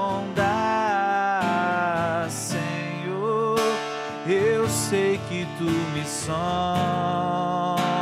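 A man singing a worship song in long held notes with vibrato, accompanying himself on a strummed acoustic guitar.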